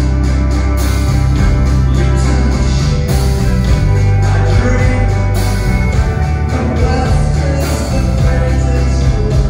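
Live rock band playing: electric guitars, electric bass and drum kit, heavy in the bass, with cymbals washing over the top.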